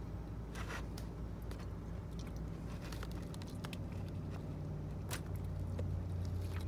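Steady low hum inside a parked car's cabin that grows a little stronger in the second half, with scattered small clicks and crackles from eating and handling the food.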